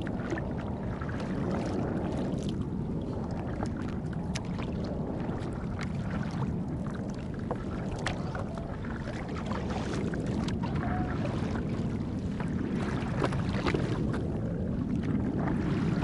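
Water lapping and splashing against the nose of an inflatable SUP board, with wind buffeting the microphone as a steady low rumble and small drips and splashes ticking now and then.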